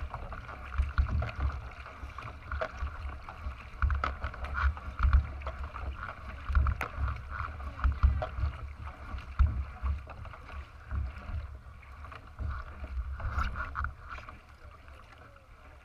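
Water splashing and rushing along the hull of a racing kayak being paddled at speed, heard close to the bow, with repeated low thumps and surges as the strokes go in. It gets quieter near the end.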